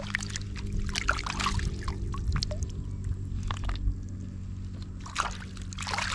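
Water splashing and trickling through a woven bamboo basket as hands lift and handle a turtle in shallow water, in irregular splashes and drips. A steady low hum runs underneath.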